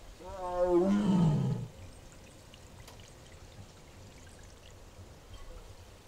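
A tiger giving a single short vocal call, about a second and a half long, wavering and then dropping in pitch at the end.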